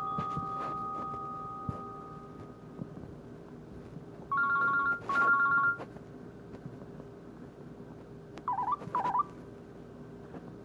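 Nokia C6-00 alert tones played through a Nokia 130 feature phone's small speaker. First a held tone fades out, then a pair of short two-note beeps comes about halfway through, and two quick warbling chirps follow near the end.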